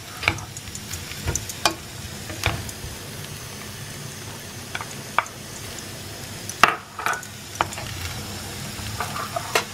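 Wooden spatula stirring and tossing chicken pieces in a thick sauce in a frying pan over the heat, with a steady sizzle underneath and irregular knocks and scrapes of the spatula against the pan.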